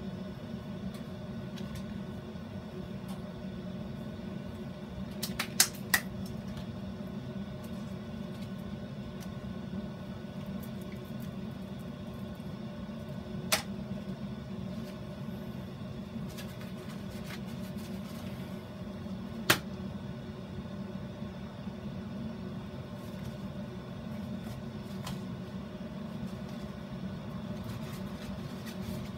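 A steady machine hum, like a running fan or appliance. A few sharp clicks stand out over it: three close together about five or six seconds in, then one about thirteen and a half seconds in and one about nineteen and a half seconds in.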